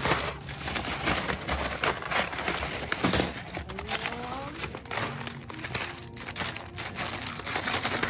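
Lidded plastic cups of ice clicking and crinkling against one another as a hand rummages through them in a chest freezer. The sound is a quick, irregular string of clacks and rustles.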